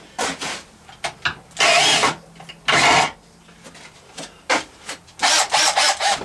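Tool handling: rubbing, clicks and several short scraping bursts as the Lee Quick-Trim cutter is fitted into a drill.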